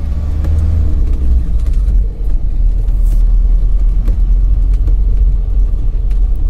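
Car driving, its engine and road noise making a steady low rumble heard from inside the cabin. A deeper engine hum eases off about a second and a half in, and there are a few faint clicks.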